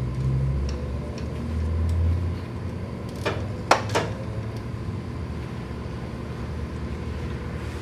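Ratcheting wrench tightening an engine's belt tensioner adjuster, with three sharp metal clinks in quick succession a few seconds in, over a low rumble at the start.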